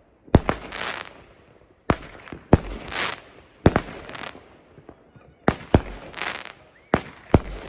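Consumer aerial fireworks, likely a multi-shot cake, firing shot after shot: about eight sharp bangs at irregular spacing of roughly a second, some in quick pairs, each followed by a brief noisy tail.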